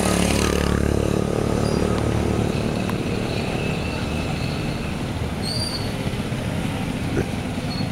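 Several small motorcycles running at low speed in a slow procession, a steady engine drone, strongest in the first second. A short high chirp comes about five and a half seconds in.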